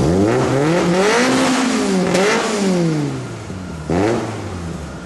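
VW Golf GTI Mk1's engine being revved: the revs climb and fall back twice, then a short, sharp blip of the throttle about four seconds in.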